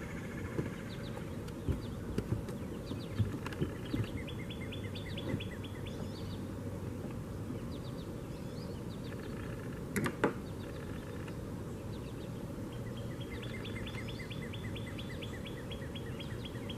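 A songbird calling in quick trilled runs of repeated notes, twice, over a steady outdoor background, with scattered light knocks and one sharper knock about ten seconds in.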